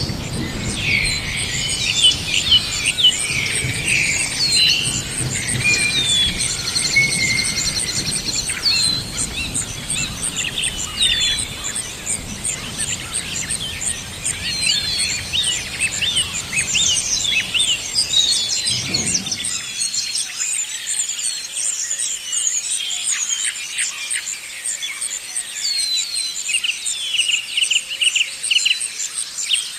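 Forest ambience: many songbirds chirping and calling over a steady, high, pulsing insect chirr. A low rumble of wind-like noise underneath cuts off abruptly about two-thirds of the way through, leaving the birds and insect on their own.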